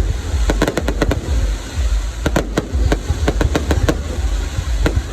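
Fireworks display: a rapid, irregular string of sharp bangs from bursting shells, several a second, over a steady low rumble.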